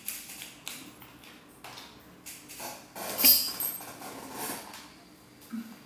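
Rustling and light knocks, with one sharp clack about three seconds in that is the loudest sound and rings briefly.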